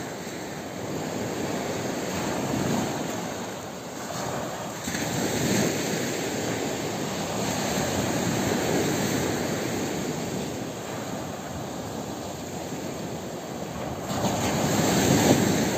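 Small waves breaking and washing up the beach, the surf rushing louder and easing back in several swells.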